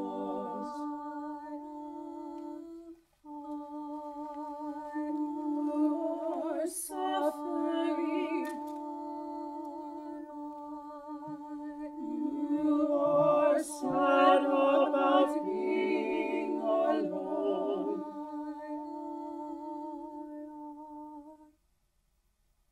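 Small mixed a cappella vocal ensemble singing slow, held chords with vibrato, with a brief break about three seconds in and a fuller, louder passage past the middle. The singing stops abruptly about a second before the end.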